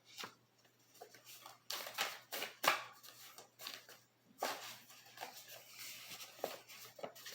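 Tarot cards being handled: a series of irregular soft rustles, slides and light snaps as cards are drawn from the deck and laid down.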